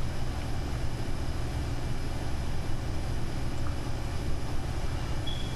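Steady low rumbling background noise, like a machine or vehicle running, with faint high steady tones over it.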